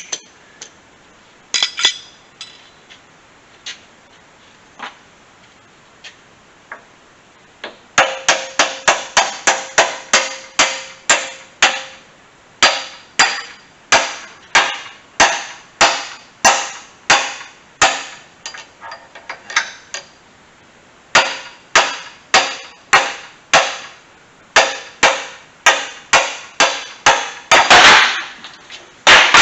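Hammer striking a steel drift pin to drive the upper pivot pin out of a Bobcat 873 lift cylinder mount, metal on metal with a ring after each blow. A few scattered blows, then from about eight seconds in a long steady run of strikes, two to three a second, with short pauses.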